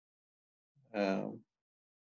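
A man's voice: one short syllable about a second in, otherwise near silence.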